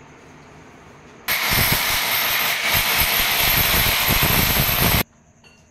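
Electric hammer drill boring into a plastered wall, drilling a hole for the split AC indoor unit's mounting plate. It starts abruptly about a second in, runs loud and steady with a fast hammering pulse for nearly four seconds, then stops suddenly.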